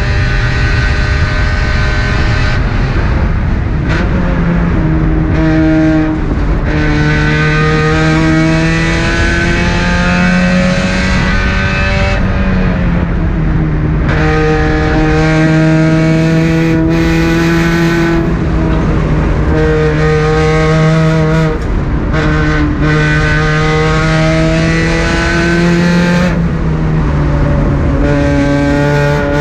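Car engine lapping a racetrack at full throttle. Its pitch climbs steadily under acceleration and drops sharply at each gear change or lift, about eight times.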